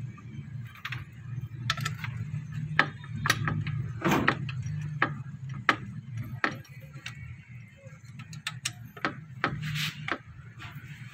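Irregular metallic clicks and knocks of hand tools working on a car's AC compressor during its removal, over a steady low hum.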